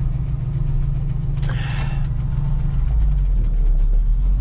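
Old carbureted gasoline truck engine running, not yet fully warm, with a short noisy burst about a second and a half in. Its low rumble grows louder from about three seconds in as the truck is readied to pull away.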